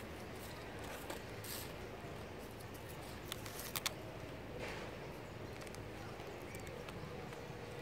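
Faint, steady outdoor background noise, with a few short crackles of dry leaves near the middle.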